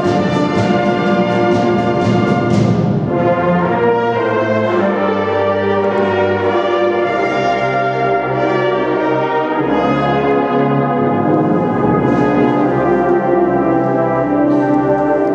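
A concert wind band playing full chords on trumpets, trombones, saxophones, clarinets and tubas. Short, sharp accents mark the first few seconds, then the chords are held over a pulsing bass line.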